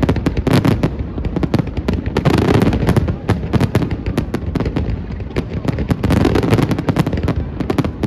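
Aerial fireworks going off in rapid succession: a dense run of sharp bangs and crackles over a low rumble of booms, swelling louder twice.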